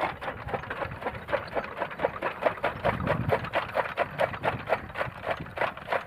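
Bull-powered gear toka machine (chaff cutter) running and chopping green fodder as it is fed in, with a fast, regular clacking of about four to five strokes a second.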